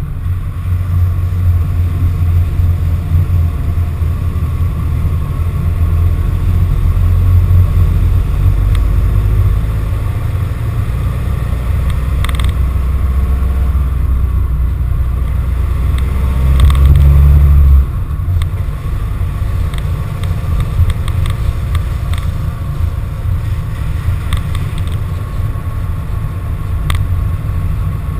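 A van driving, heard through a GoPro mounted on its body: a loud, steady low engine and road rumble that builds, peaks and then drops off suddenly about eighteen seconds in, with a few short knocks along the way.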